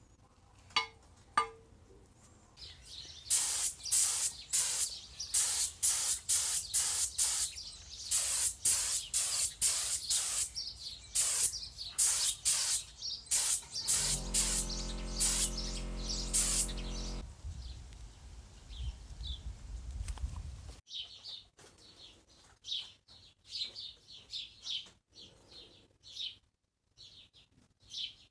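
A paint spray gun hissing in short repeated bursts, roughly one a second, followed by a steady low hum for about three seconds; birds chirp near the end.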